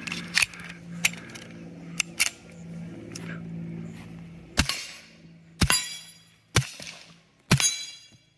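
Four suppressed shots from a Colt 1911 .45 with a SilencerCo Octane 45 suppressor, about a second apart in the second half, each followed by the ring of a steel plate target being hit. The plate's ring is louder than the muffled report.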